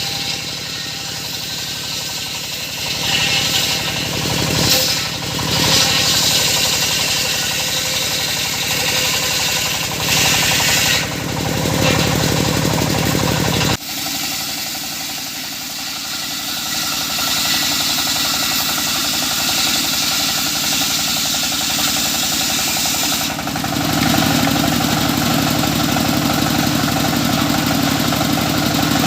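Circular saw running and cutting wood, its sound swelling and easing over several cuts. It drops suddenly about 14 seconds in, then grows fuller and deeper from about 23 seconds.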